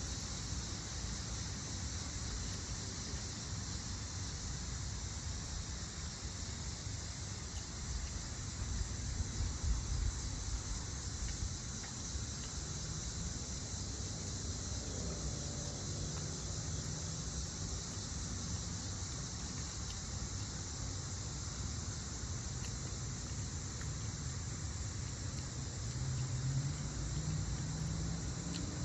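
Steady high-pitched insect chorus over a low rumble, with a faint low hum coming in about halfway through and again near the end.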